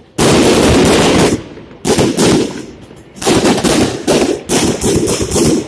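Fireworks salute going off: several volleys of rapid, loud bangs, each lasting up to about a second, with short gaps between.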